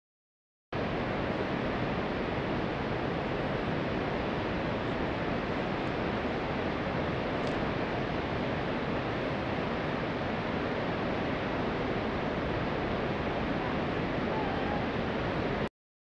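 Steady, even rushing noise with no swell or pitch, starting abruptly about a second in and cutting off abruptly near the end.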